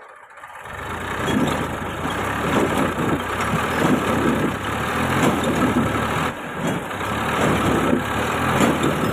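Massey Ferguson 1035 DI tractor's three-cylinder diesel engine revving up about a second in and running hard under heavy load, with an uneven pulsing, as it strains to pull itself and a loaded stone trolley out of a rut.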